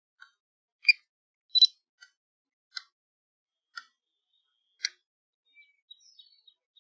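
A series of short, sharp clicks, about seven at uneven intervals, with the loudest two about a second and a second and a half in. A few faint, higher chirp-like sounds follow near the end.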